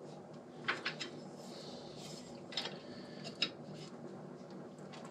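A few faint, sharp metal clinks of a wrench and socket on a Loctite-secured cylinder bridge bolt of a Harley-Davidson Evolution V-twin engine, over a steady low room hum.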